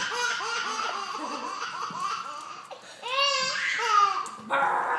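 Baby laughing in a string of high-pitched giggles, with a louder burst of laughs about three seconds in.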